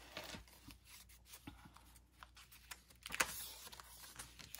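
Paper pages of a handmade junk journal rustling as they are handled, with small soft clicks, and a louder rustle as a page is turned about three seconds in.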